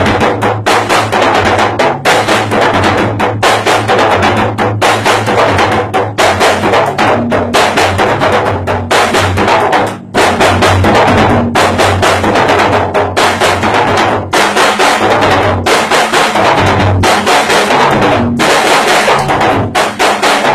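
Acoustic drum kit played in a steady groove: snare and bass drum under constant cymbal wash. It breaks off for a moment about ten seconds in.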